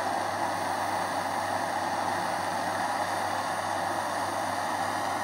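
Steady hiss of a gas torch flame held on a Kanthal wire coil, heating it until it glows red.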